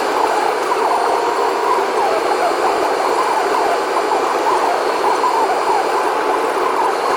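Steady drone of a semi-truck driving, with a wavering, siren-like whine on top, as of engine and road noise played back sped up.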